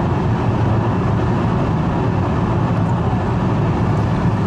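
Steady road and engine noise inside the cabin of a moving car: an even, low rumble without a break.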